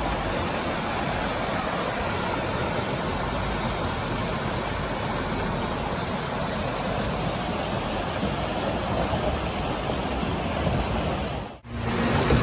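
Steady rush of a shallow rocky river with a four-wheel-drive vehicle's engine running as it fords the stream. The sound drops out for a moment near the end.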